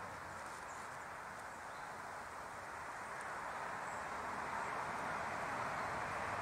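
Steady background hiss of outdoor ambience, with no distinct sound standing out.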